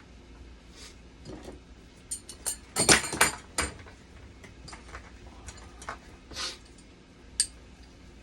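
A string of sharp clicks and knocks, like parts or tools being handled, with a loud cluster of rattling knocks about three seconds in.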